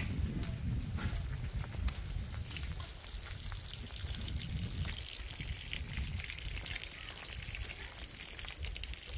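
Rain pattering and rainwater running over muddy ground, over a steady low rumble.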